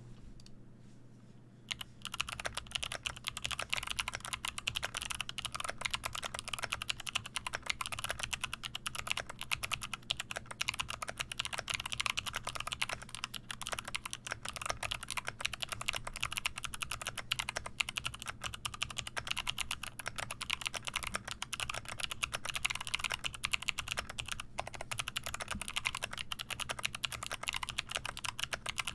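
Fast, continuous typing on a 60% mechanical keyboard fitted with Kailh Box Jade clicky switches in an aluminium plate and wooden case, a dense stream of sharp clicks. The typing starts about two seconds in.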